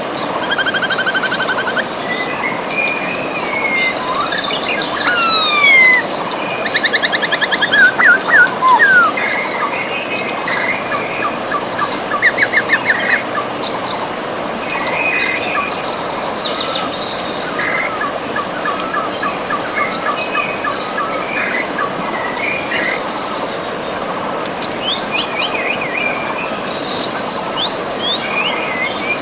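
Several wild birds singing and calling, with rapid trills and quick sweeping whistles overlapping one another, over the steady rush of a river.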